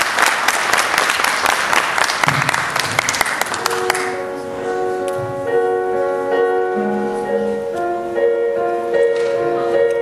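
Audience applause that stops about four seconds in, as a slow piano intro begins with sustained notes.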